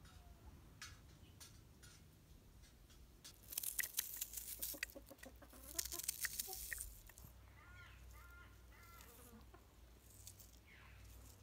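Chickens clucking, a run of short calls past the middle. Before them come a few seconds of loud crackling and rustling.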